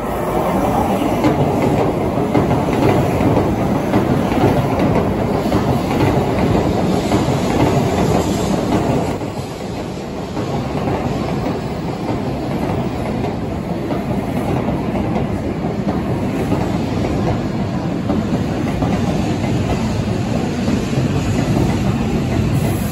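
N700-series Shinkansen train arriving at a station platform, its cars rolling past at low speed. Its wheels and running gear give a steady, loud rumble that eases briefly about nine seconds in.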